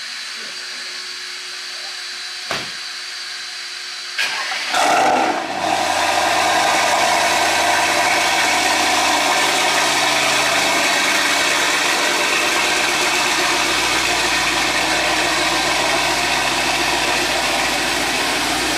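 Mercedes-AMG GT 63 four-door's twin-turbo V8 starting about four seconds in, with a brief loud flare of revs at start-up, then settling into a steady idle.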